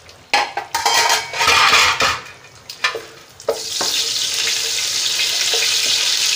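Whole spices (bay leaves, cardamom, cinnamon) sizzling in hot oil and ghee in a large nonstick pot while a wooden spatula stirs them. Irregular bursts of stirring noise and a few clicks in the first three seconds, then a steady loud sizzle from about three and a half seconds in.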